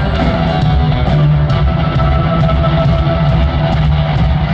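Rock band playing live, loud, with electric guitar and drums over heavy bass, heard from the arena stands.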